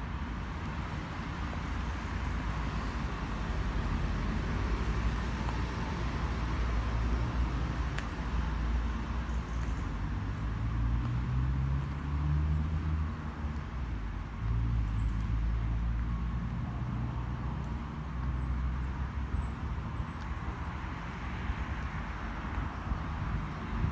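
Steady rumble of road traffic, with one vehicle's engine growing louder and then fading about halfway through. A few faint, short, high chirps come in the last third.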